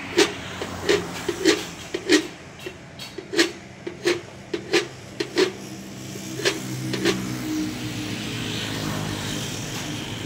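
Mini electric wire-rope hoist jogged in short bursts from its pendant control: a sharp clack with a brief motor hum about every half second. From about six seconds in, the hoist motor runs more steadily.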